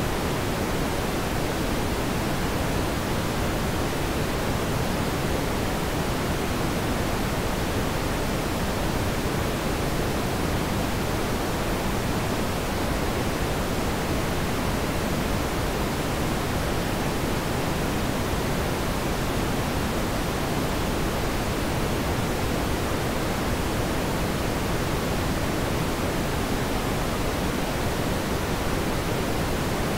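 A steady, even hiss of noise that never changes in level or character, with no distinct events in it.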